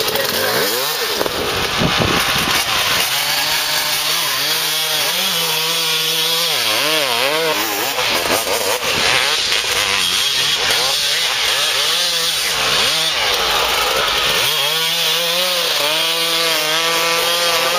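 Suzuki RM two-stroke dirt bike engine revving up and down again and again as it is ridden hard around tight turns. The pitch climbs and falls in quick swells, about once a second.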